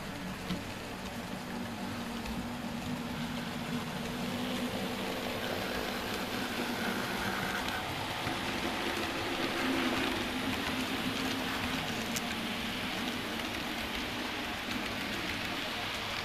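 Model freight train rolling past on model track: a steady rushing rattle of wheels on rail that grows louder in the middle as the cars pass close, with faint tones in the middle.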